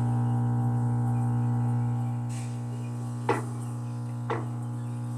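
Electrolux LT15F washing machine running after its repair: a steady low hum that eases slightly about two seconds in, with two short clicks about a second apart.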